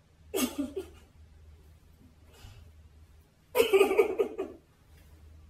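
A woman's voice making a short sound without words about half a second in, then a choppy burst of laughter around four seconds in, over a faint steady low hum.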